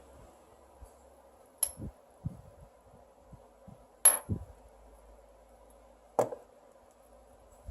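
Small metal pieces clinking and tapping on a hard surface: three sharp clinks, the loudest about four seconds in, with softer knocks in between.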